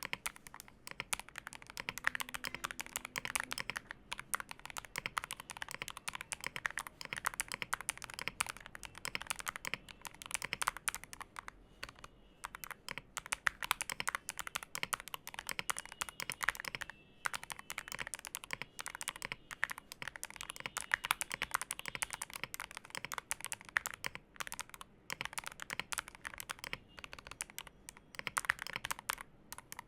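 Fast, continuous typing on an Akko ACR67 mechanical keyboard fitted with Akko CS Silver Pro switches, tape-modded, with lubed and tuned stabilizers: a dense run of key presses with a few brief pauses.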